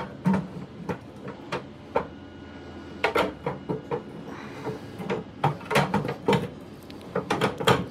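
Wire cooking rack of a pellet grill clanking and rattling against the grill's rack supports as it is angled in and set in place: a run of irregular metal knocks.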